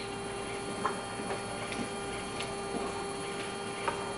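Steady electrical hum of running lab equipment, with a few faint clicks and taps as a small plastic sample tube is capped and handled.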